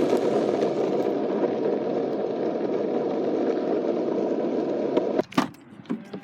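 Longboard wheels rolling fast over pavement downhill: a steady rumble that cuts off about five seconds in, followed by a few sharp knocks.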